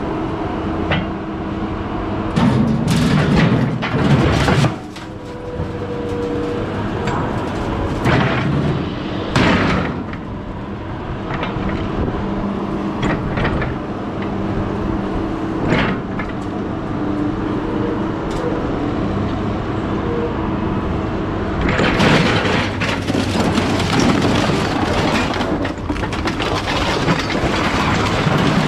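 Hydraulic grapple loader working scrap: its engine and hydraulic pump run with a steady hum while the grapple bites and drops scrap metal, making repeated clanks and crashes. The metal crashing is heaviest a couple of seconds in and again through the last several seconds.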